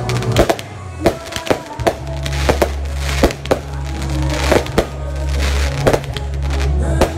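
Shots from a consumer fireworks compact (cake) going off one after another, about one to two a second at irregular intervals, each a sharp bang. Under them plays music with a steady heavy bass line.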